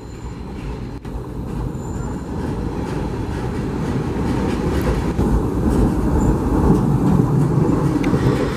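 SEPTA Broad Street Line subway train (Kawasaki B-IV cars) pulling into the station, its wheels and running gear rumbling and growing steadily louder as it comes alongside.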